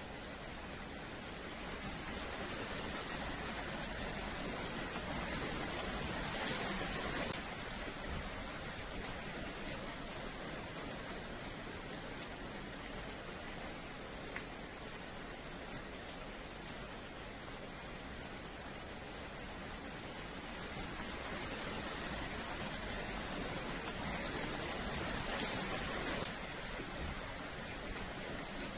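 Steady rain falling on wet paving, an even hiss that swells heavier twice and each time eases back suddenly.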